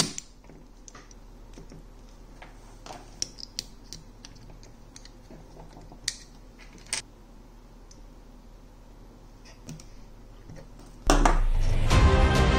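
Scattered light clicks and taps of a small power supply circuit board, tools and loose parts being handled on a workbench. About eleven seconds in, loud music starts abruptly.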